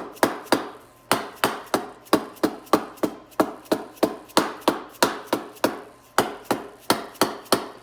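Small 1 lb dead blow hammer lightly tapping a 4L60E transmission pump down into the case, about three taps a second with a short pause about a second in, as the pump is seated.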